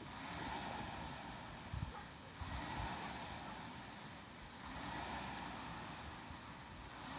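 Air rowing machine's fan flywheel whooshing, swelling with each pull stroke about once every two seconds, with a low knock from the seat or chain near the middle.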